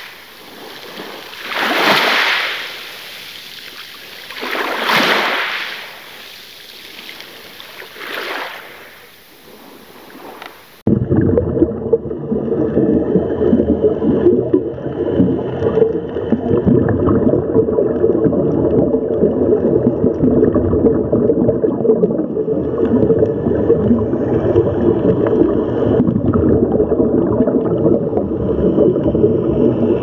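Ocean waves washing in, swelling about every three seconds. About eleven seconds in, this cuts abruptly to a louder, steady, muffled underwater rush with a bubbling texture.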